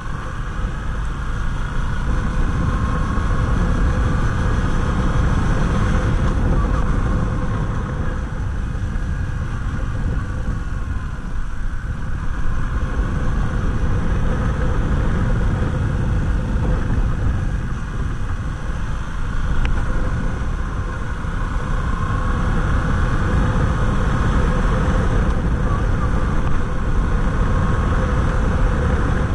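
Yamaha MT-07's 689 cc parallel-twin engine running while riding, picking up speed from about 30 to nearly 60 km/h, with a heavy rush of wind and road noise.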